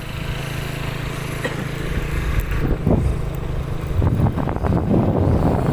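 An engine running steadily at an even pitch. From about four seconds in, strong wind buffets the microphone and drowns it out.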